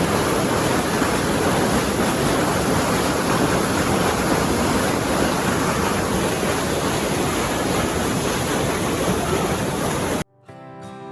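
Water bubbling and gurgling vigorously in a dense, churning wash, cutting off suddenly near the end. Gentle plucked guitar music starts right after.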